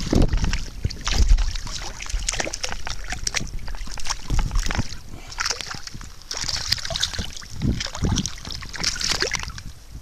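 Shallow river water splashing and sloshing as an American shad is landed at the water's edge, with irregular clicks and crunches of river gravel and stones underfoot.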